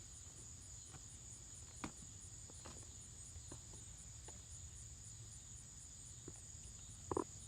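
Insects chirring outdoors: a steady high-pitched trill pulsing about four times a second. A few soft clicks are scattered through it, and a louder brief knock comes near the end.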